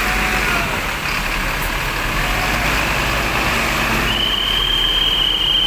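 Road traffic on a wet street: motorcycle and car engines running, with the hiss of tyres on the wet road. About four seconds in, a steady high-pitched tone starts and holds.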